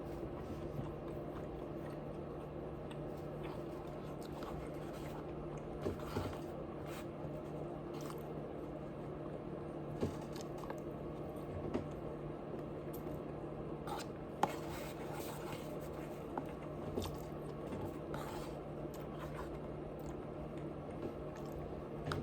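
Close-miked chewing: wet mouth sounds and biting, with scattered sharp clicks over a steady low hum.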